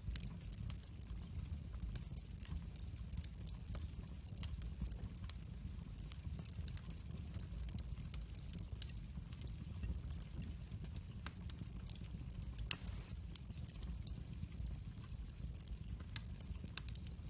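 Small wood fire crackling: scattered faint pops and snaps over a low rumble, with one sharper snap about two-thirds of the way in.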